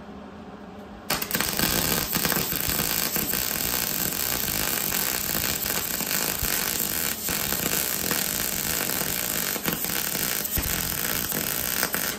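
Wire-feed welder running one continuous bead on galvanized steel strut: a steady crackling arc starts about a second in, holds for about eleven seconds and cuts off abruptly.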